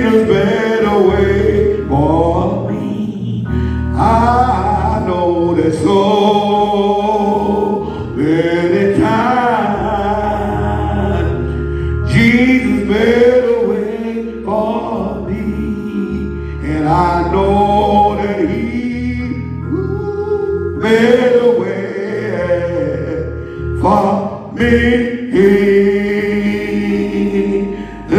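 A man singing a slow gospel song into a handheld microphone, long drawn-out notes bending up and down.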